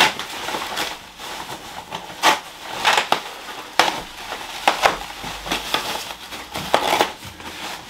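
Thin plastic wrapping bag crinkling and rustling in irregular crackles as it is pulled off an air fryer by hand.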